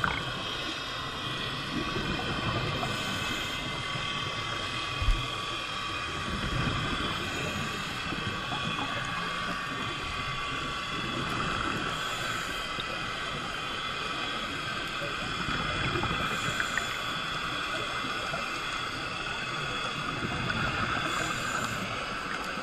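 Muffled underwater sound heard through a GoPro's waterproof housing, with the diver's own scuba regulator breathing: a hiss and bubbling that swells about every four to five seconds. A single sharp knock about five seconds in.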